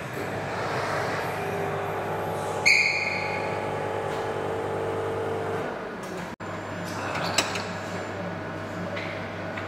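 Steady low hum of an indoor room, with a single short bright ping about three seconds in and a brief click later on.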